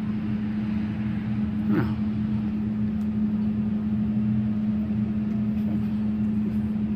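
A steady machine hum at one constant pitch over a low rumble, with a short falling chirp about two seconds in.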